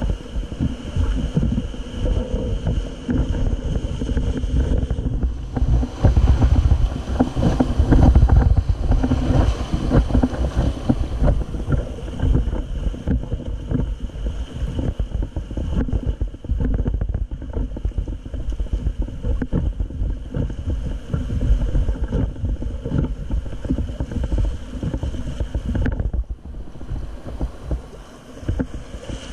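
Whitewater rapids rushing and churning around an inflatable raft, with heavy wind buffeting on the microphone. Loudest about six to ten seconds in, easing off near the end.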